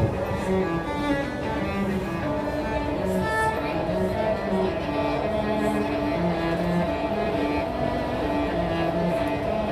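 Solo cello bowed, playing a moving melody of notes changing about twice a second, over a steady low rumble.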